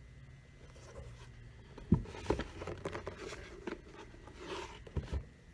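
Handling noise from a leather-soled shoe being turned over in the hands close to the microphone: rubbing and scraping, with a few sharp knocks about two seconds in and again near the end.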